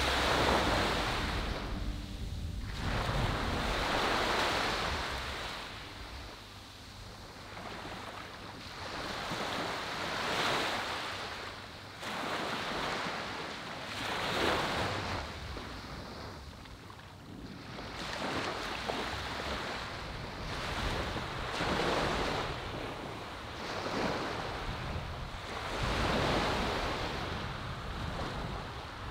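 Small waves breaking and washing up a sandy beach, the surf swelling and falling away every few seconds.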